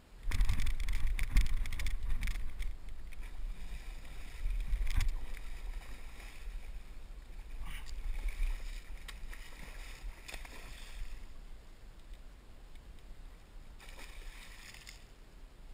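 Water splashing and churning as a hooked striped bass thrashes at the surface. It starts suddenly and is loudest in the first few seconds, and a second short burst of splashing comes near the end. A low rumble on the microphone runs underneath.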